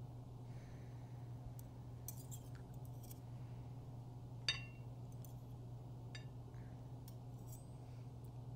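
Knife and fork clinking and scraping against a ceramic bowl as food is cut: a few light clicks, then a sharper clink with a short ring about four and a half seconds in. A steady low hum lies underneath.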